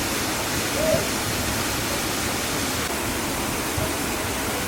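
Waterfall rushing, a steady, even roar of falling water, with one brief short call or voice about a second in.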